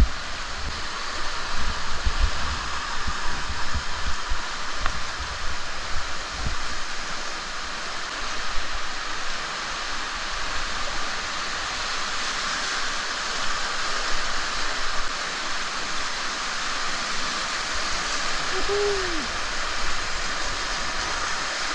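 Fast-flowing river water rushing steadily, with low thumps on the microphone in the first several seconds.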